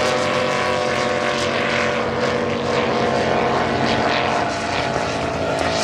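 Engines of two racing powerboats running flat out side by side, a steady, even drone with no change in pitch.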